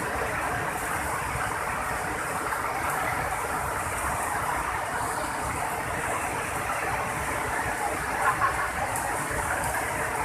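River in flash flood, a muddy torrent pouring over a concrete weir: a steady, dense rush of water. Two short louder thumps about eight seconds in.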